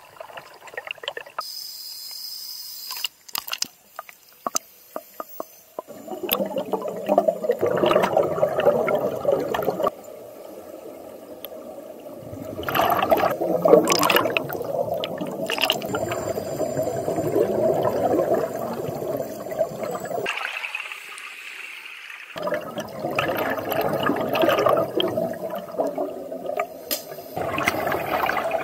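Heard underwater, scuba divers' regulator exhaust bubbles gurgle in long bursts a few seconds each, with short quiet gaps between breaths. Near the start there is water sloshing, then a run of sharp clicks.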